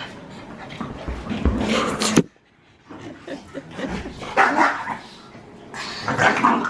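Border Collie puppy and Cavalier King Charles spaniels in rough play, barking in several bursts, with a sudden break about two seconds in.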